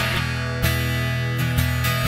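Music with strummed guitar chords starting up, a few strokes across the strings over steady low notes.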